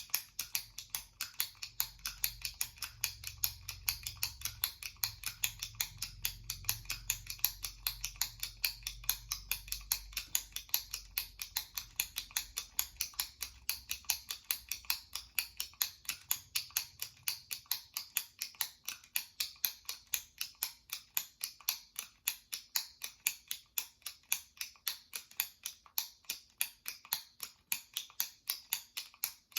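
Jumbo retractable pen clicked repeatedly by pressing its top plunger, giving a steady run of sharp clicks at about four a second.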